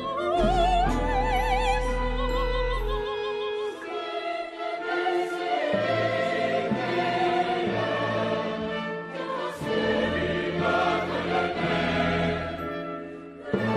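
Contemporary orchestral music with voices. A singer holds notes with a wide vibrato over a low sustained bass note, then from about four seconds in a denser mass of voices and instruments takes over.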